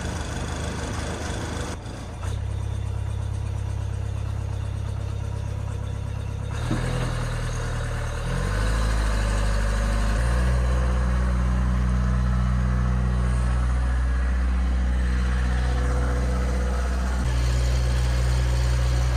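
Kubota mini excavator's diesel engine running just after starting. It idles, then steps up in speed between about seven and ten seconds in and holds a steady higher speed. It runs evenly with its new muffler and fresh filters.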